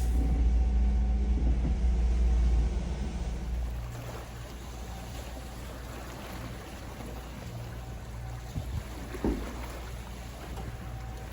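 Boat motor running steadily under way, a low rumble with a few steady hum tones and water noise; the rumble drops in level about three and a half seconds in. A single knock comes about nine seconds in.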